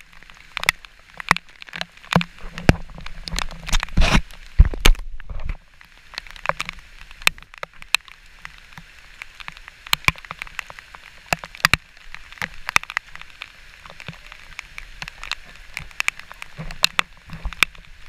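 Water drops from rain and waterfall spray striking the GoPro's housing in many irregular sharp ticks over a steady hiss of falling water. About four to five seconds in come a few heavier knocks and a short low rumble.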